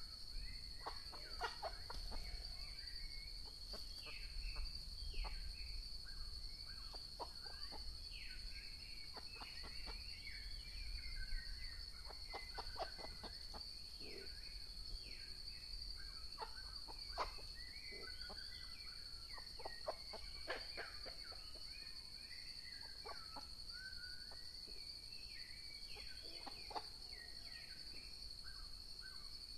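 Red junglefowl hens fighting, giving many short, falling squawking calls, with sharp knocks from the scuffle in between.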